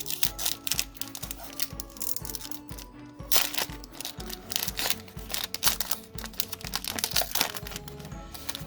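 Foil Pokémon booster pack crinkling and tearing open in irregular crackles, loudest a little past the middle, over background music with a steady beat.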